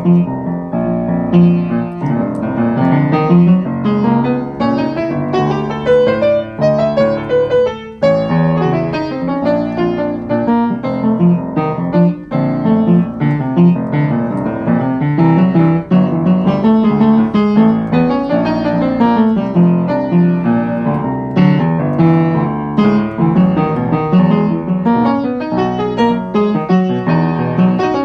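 Piano music: a continuous flow of single notes and chords rising and falling in runs.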